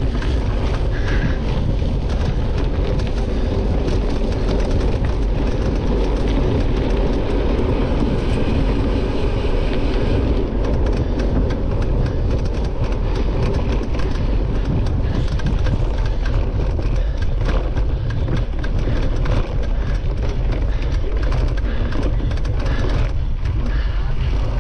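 A cyclocross bike ridden fast over rough ground, with wind rushing on the microphone, steady tyre noise, and many small rattles and knocks from the bike. A hiss of tyres through dry fallen leaves drops away about ten seconds in, as the surface turns to dirt and grass.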